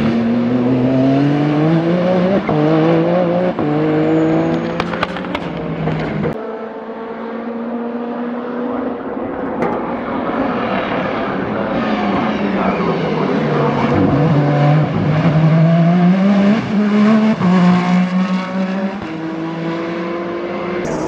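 Peugeot 9X8 Le Mans Hypercar's 2.6-litre twin-turbo V6 at racing speed, accelerating with its pitch climbing in steps through upshifts. After an abrupt break about six seconds in, the engine pitch falls as the car slows for a corner, then climbs again in steps as it accelerates away.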